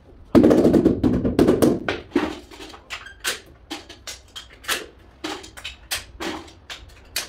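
A ceramic floor tile being set into its mortar bed by hand and with a suction-cup lifter: a dense burst of knocking and scraping for the first second or so, then about a dozen separate sharp taps, roughly two a second.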